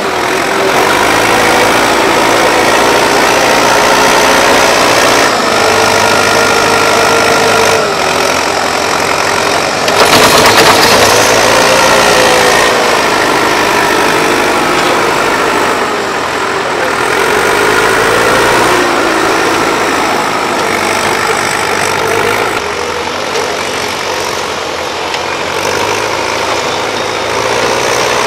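Diesel engines of Volvo excavators running while they dig, the engine note rising and falling as the load changes. A loud rush of noise about ten seconds in is the loudest moment.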